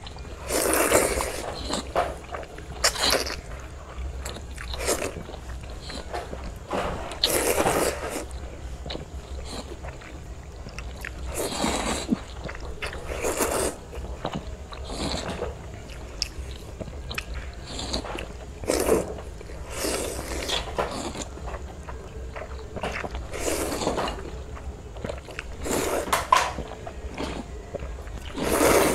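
People slurping and chewing instant noodles close to the microphone: loud wet slurps that come every second or two, with chewing and smacking between them.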